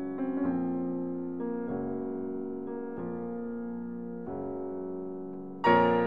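Background piano music: slow sustained chords that change every second or so, with a louder chord near the end.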